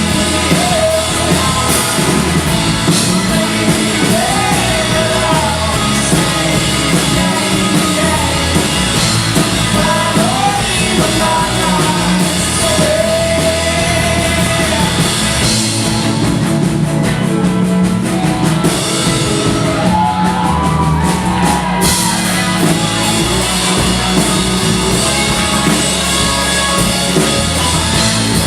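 Rock band playing live, with a drum kit and a sung vocal melody over the band. The high end thins out for a few seconds midway, then comes back.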